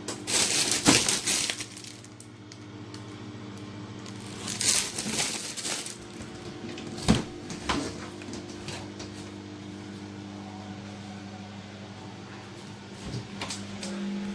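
Plastic grocery packaging crinkling and rustling in two bursts as it is handled, with a few sharp clicks and knocks, over a steady low hum.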